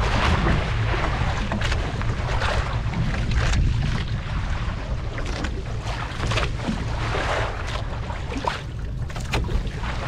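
Wind buffeting the microphone and sea water slapping and splashing around a small fishing boat, over a steady low rumble, with irregular short gusts and splashes.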